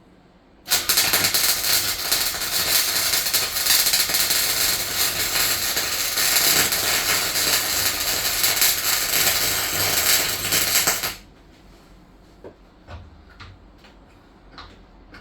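Arc welding on a van's steel floor: a steady, dense crackle that starts suddenly just under a second in and cuts off about eleven seconds in. A few light clicks and knocks follow.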